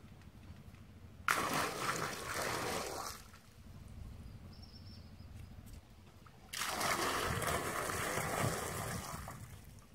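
Water poured and splashing, twice: the first pour starts suddenly about a second in and lasts about two seconds, the second starts a few seconds later, runs about three seconds and tails off.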